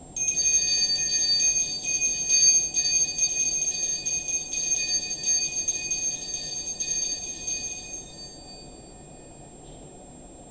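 Altar bells rung rapidly as the host is elevated at the consecration, the signal for the elevation. A bright, high ring of many quick strokes starts at once and dies away about eight seconds in.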